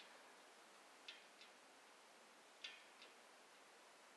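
Faint pairs of light ticks from a spinning magnet wheel, one pair per turn, spaced a little wider each time as the wheel slows.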